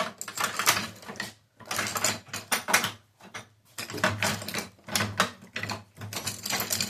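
Small metal screwdriver bits being rummaged and sorted by hand, clicking and rattling against each other and their case in repeated bursts.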